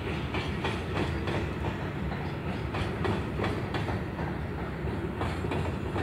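Loaded coal hopper wagons of a heavy freight train rolling past, their wheels clicking over the rail joints in a steady clickety-clack above a low rumble.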